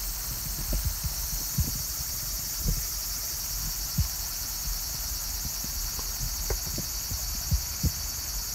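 A steady high-pitched chorus of summer insects, with a scatter of short, soft low thumps and knocks.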